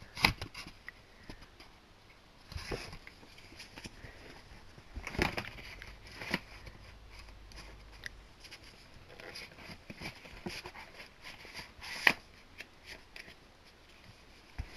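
Handling of DVD cases and their packaging: irregular clicks and taps of plastic with light rustling, the loudest clicks shortly after the start, around five and six seconds in, and about twelve seconds in.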